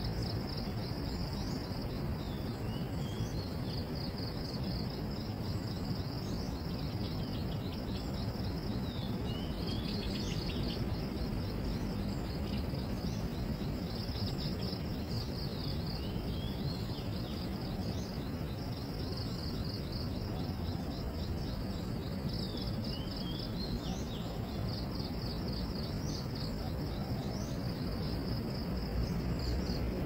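Insects trilling steadily in a high, fast-pulsing chorus, with about four short chirps spread across it, over a steady low rumble.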